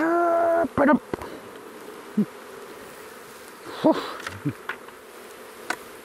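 Honey bees buzzing around an opened hive, with single bees flying close past the microphone now and then in short rising-and-falling buzzes. A loud steady hum lasts about half a second at the very start.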